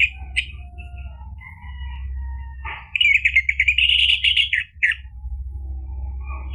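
Orange-headed thrush singing a varied song of short whistled notes. About three seconds in comes a loud, fast, chattering run lasting about two seconds. A steady low hum runs beneath.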